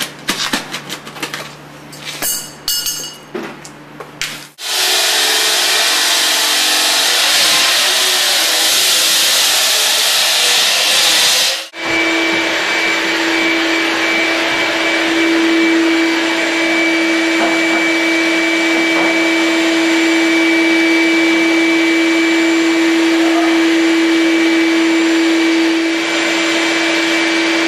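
Clattering and knocking for the first four seconds or so. Then a loud rushing noise, and from about twelve seconds in an electric motor runs with a steady whine on one constant pitch.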